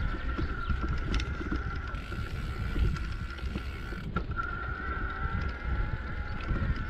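Mountain bike rolling over a rough dirt trail: a steady low rumble of tyres and wind on the microphone, with scattered knocks and rattles from the bike over bumps. A thin steady high whine runs under it, breaking off briefly about four seconds in.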